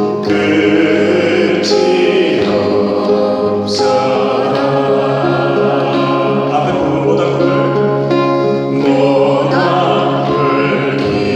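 Music: a group of people singing a slow song together over accompaniment.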